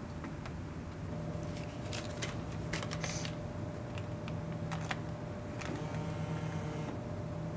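Scattered clicks and taps at a Snapple drink vending machine as money goes in and the selection buttons are pressed, over a steady low hum.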